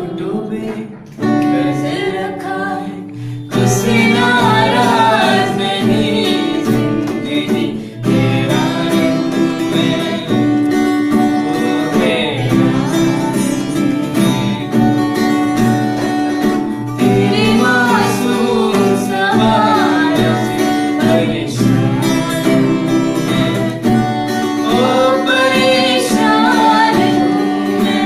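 A woman singing into a microphone to a strummed acoustic guitar. After a brief lull about a second in, the singing picks up again and carries on with the guitar.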